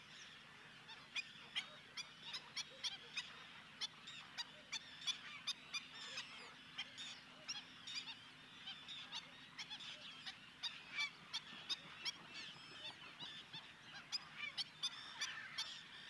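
Faint chorus of a large waterbird flock: many short calls overlapping, several a second, with no pause.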